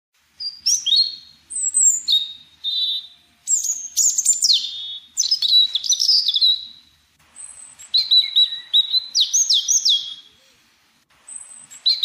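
Songbird singing in a run of varied phrases of quick chirps and high whistled notes, some fast down-slurred notes repeated in quick series, with short pauses between phrases and a brief lull before it starts again near the end.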